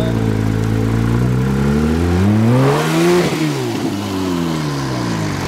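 Porsche 911 GT3's naturally aspirated flat-six accelerating past. Its pitch climbs to a peak about three seconds in, then falls as the car drives away.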